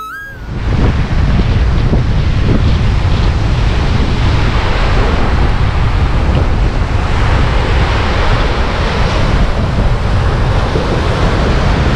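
Sea surf breaking and washing up a sandy shore, with strong wind rumbling on the microphone.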